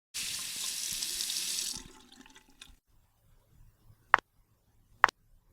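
Water running from a tap for about two seconds and fading out, followed by two short sharp clicks.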